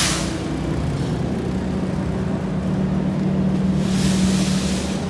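Engines of heavy asphalt paving machinery running steadily with a low, even hum. A loud rushing hiss swells about four seconds in and fades near the end.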